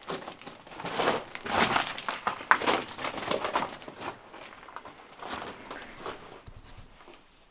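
Footsteps crunching and scraping on loose rock and gravel in an irregular run, thinning out after about four seconds.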